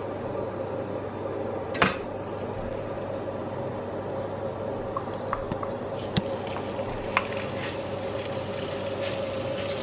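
Melted butter sizzling in a steel frying pan on an induction hob, with a faint steady hum. A sharp knock comes about two seconds in, and light clicks and knocks follow as a bowl of raw salmon cubes is tipped into the pan.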